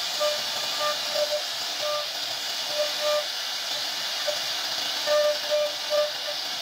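CNC router spindle carving relief into wood with a small end mill: a steady high hiss from the spinning spindle and cutting, broken by short tonal squeals from the bit that come more often near the end.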